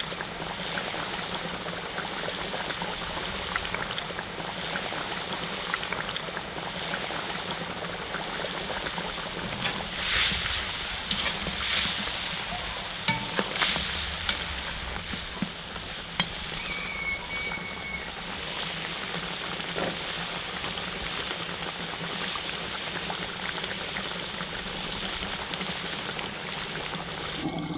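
Braising meat and sauce sizzling and bubbling steadily in a cast-iron cauldron. Around ten to fourteen seconds in, the sizzling gets louder, with scraping and clatter as potatoes are added and stirred with a metal spatula.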